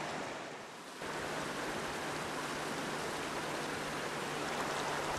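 River water running with a steady rushing noise, dipping briefly and coming back up about a second in.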